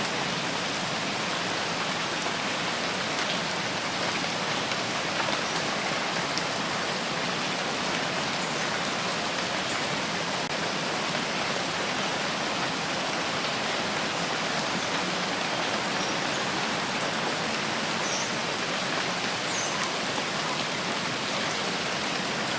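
Steady rain falling, an even hiss that neither builds nor fades.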